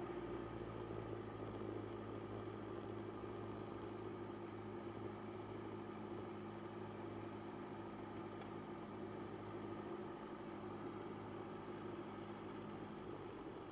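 Piper Cherokee light aircraft's engine running steadily, a low even hum that eases slightly near the end.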